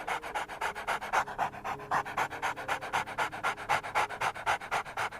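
A dog panting rapidly, with quick, evenly spaced breaths.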